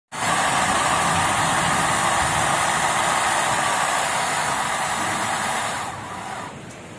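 Small electric motor driving a hydraulic gear pump, running with a steady whine as the miniature dump truck's cylinder raises the bed, then cutting off about six seconds in.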